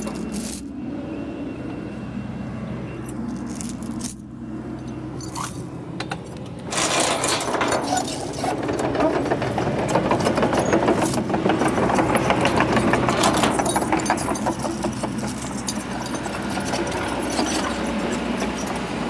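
Heavy-equipment diesel engine running steadily under the work of tearing out trees. A few sharp cracks and clanks in the first few seconds, then a long stretch of dense crackling, snapping and rattling as wood and brush are broken, easing off near the end.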